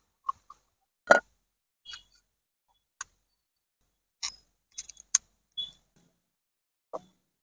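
Scattered sharp clicks and small knocks of metal and plastic table-fan parts and tools being handled during fitting, about a dozen in all, the loudest about a second in.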